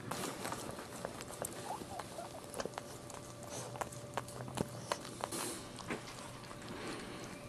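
Maltese mother dog licking her newborn puppy clean: a run of quick wet licking and smacking clicks, with a few tiny squeaks about two seconds in.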